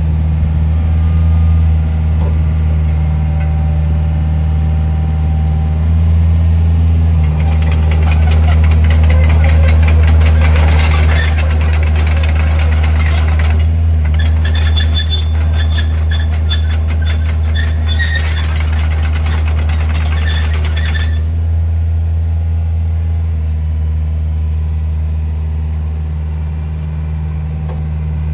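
Takeuchi TB150C midi excavator's diesel engine running steadily. About a quarter of the way in, a dense rapid clatter with a higher whine joins it as the machine works, and it stops suddenly about three quarters of the way through.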